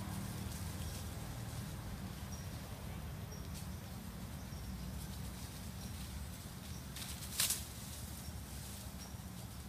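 Forest ambience: a steady low rumble with faint, short, high chirps recurring every second or so. About seven seconds in comes a brief, louder rustle of dry leaf litter.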